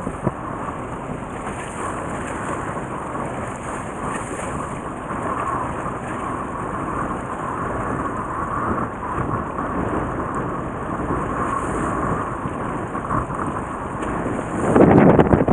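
Steady wind and boat noise on a small fishing boat at sea, with a heavy gust of wind buffeting the microphone near the end.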